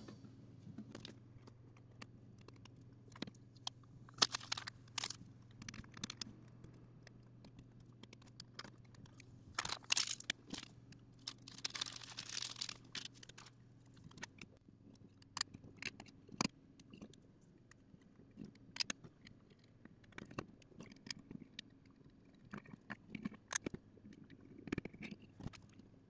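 Quiet handling of small acrylic case parts and the tester's circuit board: scattered light clicks and plastic taps, with a few short rustling, tearing bursts of protective paper being peeled off the acrylic panel.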